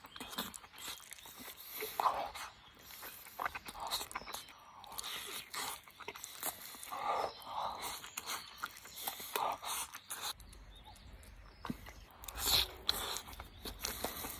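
A person eating close up: wet chewing and slurping mouthfuls of tomato-sauced hamburger steak and rice, in short irregular bursts with lip smacks.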